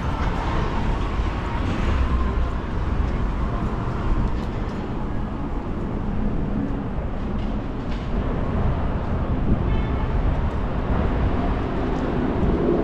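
City street traffic noise: a steady low rumble of passing vehicles.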